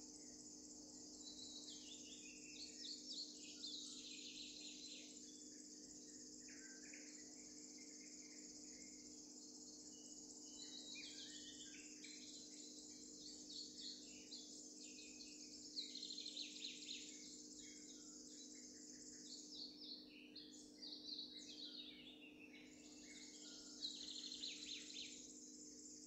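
Faint woodland ambience: songbirds singing short, varied phrases on and off over a steady high-pitched hiss, with a faint low hum underneath.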